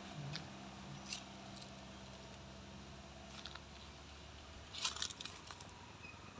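Faint engine hum of a car climbing a steep hill away from the listener, fading over the first couple of seconds. Scattered short sharp clicks, with a cluster of them about five seconds in.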